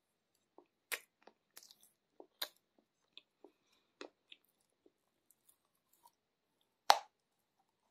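Close-miked chewing and crunching of a chalky 'Aktobe cookie' dipped in liquid: scattered wet crunches and small clicks, then one loud crunching bite about seven seconds in.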